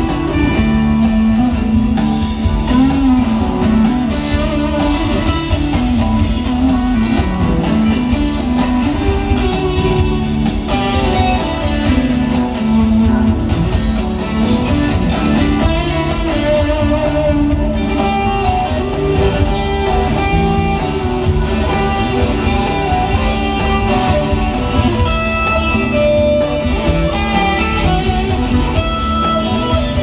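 Live rock band playing an instrumental passage: electric guitars lead over bass and drums, with no singing.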